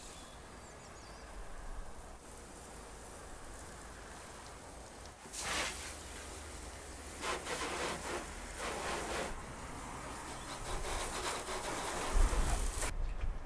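Water spraying from a pressure-washer lance onto a van and wet concrete: a steady hiss that swells in several louder surges of spray. A low rumble rises near the end.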